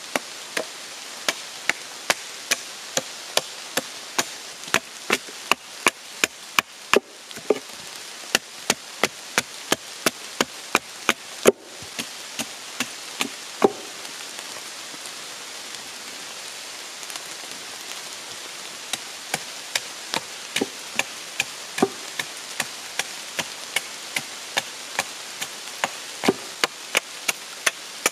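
Hatchet blows chopping into a dry oak log, about two strikes a second, with a pause of several seconds midway; the blows are hewing the soft, rotting outer wood off the log's end. Steady rain hiss underneath.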